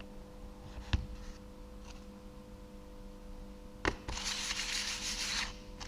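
Timing-belt idler pulley being reassembled by hand: a small click about a second in, a sharper click near four seconds, then about a second and a half of rubbing as the parts are fitted together.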